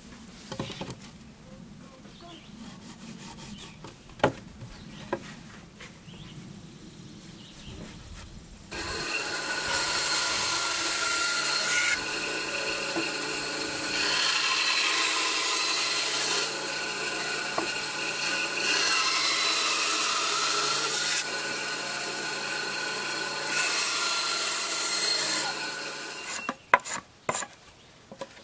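Mastercraft benchtop band saw running and ripping a wooden board lengthwise. It starts about nine seconds in and goes on until about two seconds before the end, swelling and easing in several stretches as the wood is fed through the blade.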